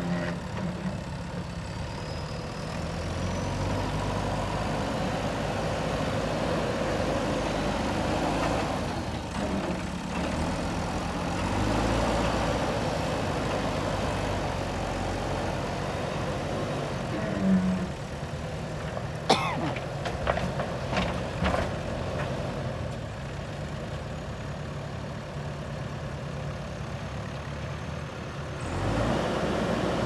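Diesel engine of a JCB 3DX backhoe loader running under working load, its note rising and falling as the front loader bucket works loose soil. A few sharp knocks come about two-thirds of the way through.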